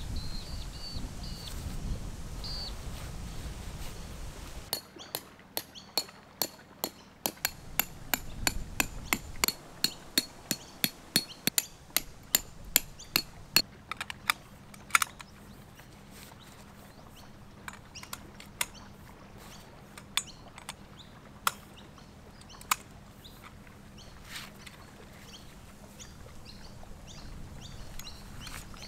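A few short, high bird chirps, then a long run of sharp clicks or taps, about two to three a second for roughly ten seconds, thinning to a scattered few.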